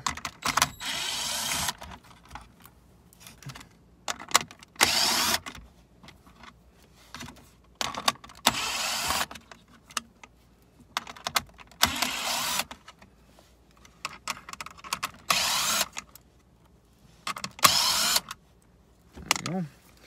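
Cordless drill with a 5.5 mm hex bit running in six short bursts of about a second each, backing screws out of the plastic console cubbies. Small clicks and rattles sound between the bursts.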